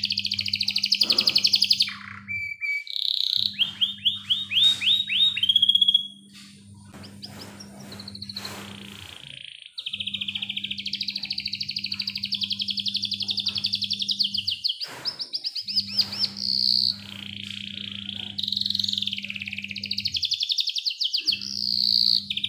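Yellow domestic canary singing a long, high-pitched song of fast rolling trills and repeated chirps, broken by a few short pauses.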